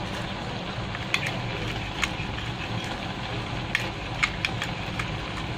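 A spoon stirring a drink, clicking lightly against its container now and then at uneven gaps, over a steady low background hum.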